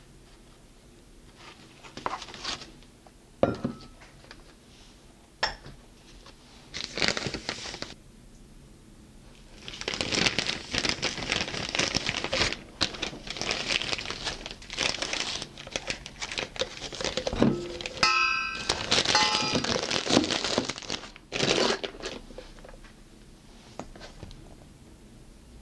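Clear disposable plastic piping bag crinkling as it is handled: a few short rustles at first, then continuous crinkling from about ten seconds in until about twenty-one seconds, with a brief ringing clink about two-thirds of the way through.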